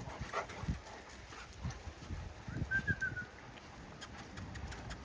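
Pack of Rottweilers scuffling and jumping for a stick, with dull thuds and a brief high whine about halfway through.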